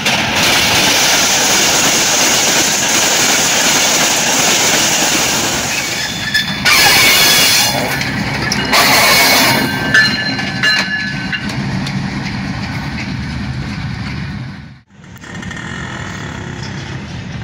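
Diesel locomotive and passenger coaches passing close by: a loud, dense rumble and rush of wheels on rail, with a few brief thin high-pitched tones about ten seconds in. It cuts off abruptly near the end and gives way to quieter, steady background noise.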